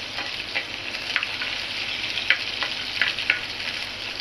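Finely chopped onions sizzling in hot oil with cumin and carom seeds, a steady frying hiss, while a spatula stirs and scrapes the pan about eight times.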